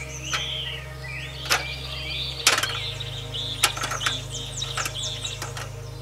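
Several sharp metallic clicks and taps from pliers gripping and turning a nut on an aluminium ladder frame, the loudest about two and a half seconds in, over birds chirping and calling.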